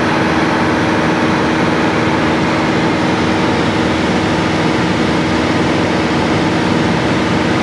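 Cessna light aircraft's engine and propeller running steadily in cruise, heard from inside the cabin as an even drone with a low hum of several steady tones.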